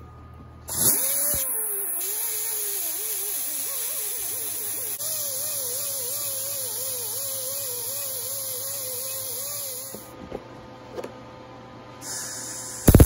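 Die grinder with a sanding disc grinding a steel truck wheel hub, with a strong hiss and a whine that wavers up and down as the disc bites and eases; it stops about ten seconds in. Right at the end a welding arc strikes and crackles.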